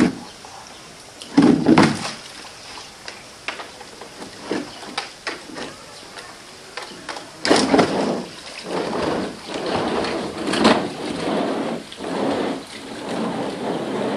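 Plastic tub full of water shoved across a wet concrete floor by a sun bear: a few knocks early on, then from about halfway a longer run of scraping with the water sloshing inside.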